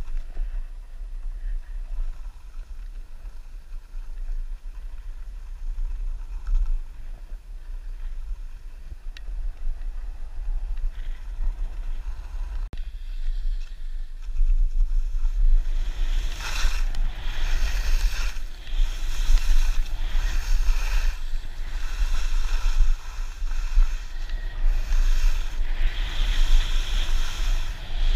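Wind rumbling on the microphone of a skier's camera during a traverse, then the hiss and scrape of skis on groomed snow growing louder about halfway through as the skier picks up speed and turns, with repeated surges.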